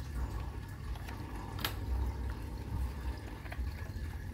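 Aquarium filter running: water pouring and trickling into the filter compartment as the pump circulates it, over a low steady rumble. A single sharp click about a second and a half in.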